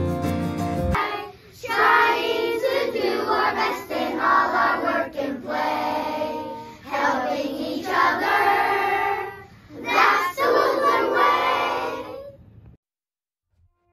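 A class of children singing together in unison, in several phrases, stopping suddenly near the end. Soft background music with guitar ends about a second in.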